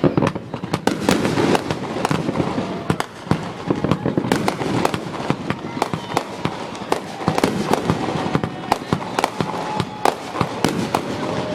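Fireworks display going off: a rapid, irregular run of many sharp bangs and crackles.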